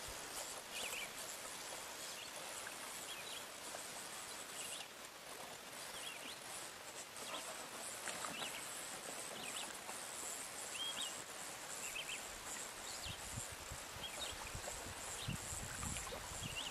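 Quiet outdoor ambience: a steady high hiss with short bird chirps about once a second.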